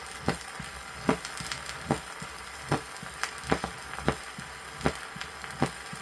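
Heart sounds heard at the cardiac apex of a patient with mitral stenosis, played from an old vinyl teaching record. The beats come about every 0.8 s. Each opens with a loud, snapping first heart sound, the typical sign of mitral stenosis, and weaker sounds fall between the beats. A steady record hiss lies under them.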